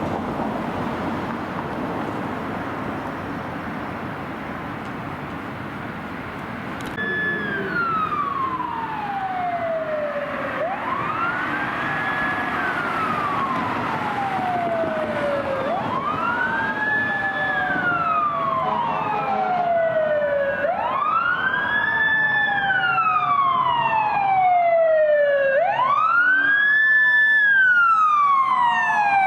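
Emergency vehicle sirens wailing in slow rising-and-falling sweeps. The first starts suddenly about a quarter of the way in over steady traffic noise; a second siren joins out of step, and both grow louder toward the end.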